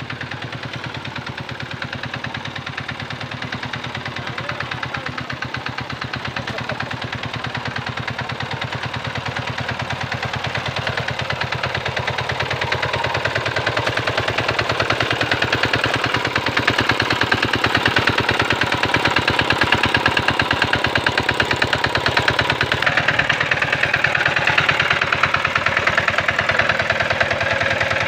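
Two-wheel hand tractor's single-cylinder diesel engine running with a fast, even chugging while it drags its cage wheels through paddy mud. It grows steadily louder through the second half as the machine comes closer.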